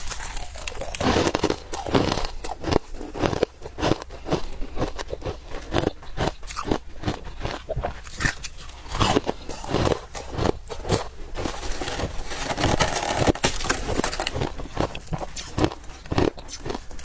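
Close-up chewing and crunching of soft frost ice in the mouth: a quick, irregular run of crisp crunches.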